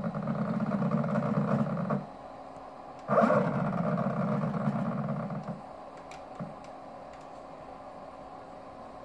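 CNC router drive motor turning a large aluminium pulley through a yellow toothed timing belt, running in two rough, buzzing bursts of about two seconds each with a short gap between. The harsh noise is the symptom of the motor's tuning problem.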